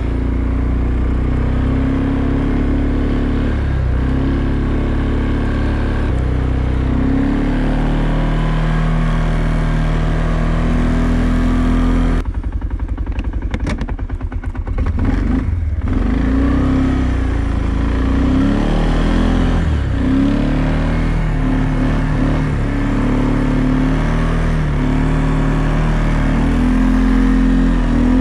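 An ATV's engine running as the four-wheeler is ridden, its pitch rising and falling with the throttle. The sound drops and stutters for a few seconds about twelve seconds in.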